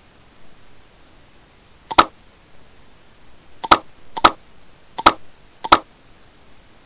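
Computer mouse button clicking five times, at uneven gaps of about half a second to a second and a half, some clicks doubled with a softer press just before the sharper one.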